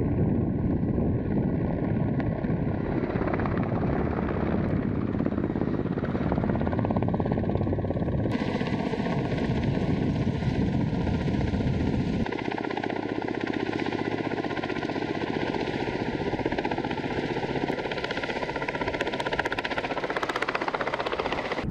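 Kamov Ka-52 attack helicopter flying, its coaxial rotors and turboshaft engines making a continuous loud, rapid rotor chop. The sound changes abruptly about eight and twelve seconds in.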